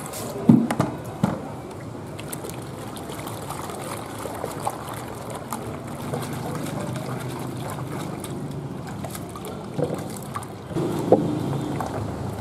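Water poured from a plastic bucket into a glass bowl of live micro eels, then hands swishing and rubbing the eels in the water, a steady sloshing and splashing as they are washed with salt. A few sharp knocks in the first second or so and again near the end.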